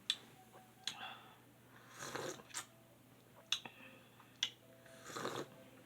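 A person breathing heavily, two loud puffs of breath about three seconds apart, amid a few sharp clicks and taps, while her mouth burns from very spicy noodles.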